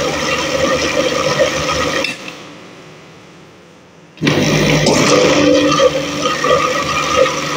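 Electric blender churning chilled curd and ice water to bring out butter. It is switched off about two seconds in and its sound dies away, then it is started again about two seconds later and runs on.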